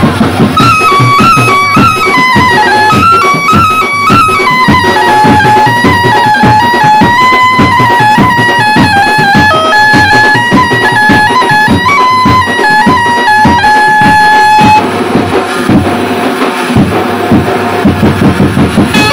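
Background music with a steady beat and a stepping melody line; the melody drops out about fifteen seconds in while the beat carries on.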